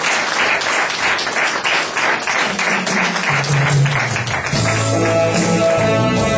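Audience applause, then an instrumental backing track starts: bass notes come in about three seconds in, and guitar a little over a second later.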